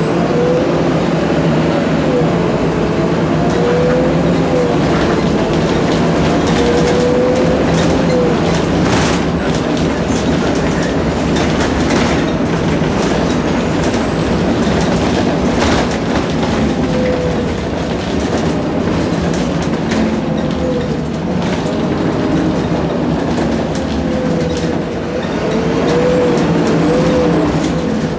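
Interior of a Volvo 7700 city bus under way: the Volvo D9C diesel engine and Voith automatic drivetrain running with a steady low hum and a whine that rises and falls in pitch as the bus speeds up and slows. Scattered short knocks and rattles come from the body and fittings over the road.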